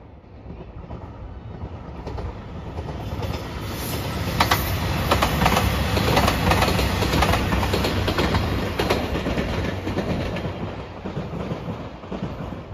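A JR Shikoku 2700 series diesel express train passes, its engines running and its wheels clicking over the rail joints. The sound builds up, is loudest midway, and fades as the train moves off.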